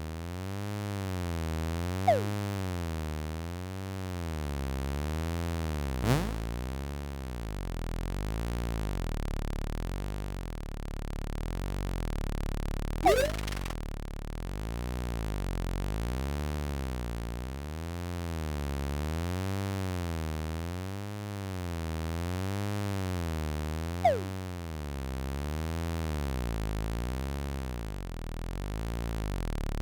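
Synthesized electronic buzzing drone that wavers up and down in pitch about every two seconds. Short zipping pitch-sweep effects cut across it: a quick falling zip about two seconds in, a fast rising sweep about six seconds in, a rising squiggly zip around the middle, and another falling zip near the end.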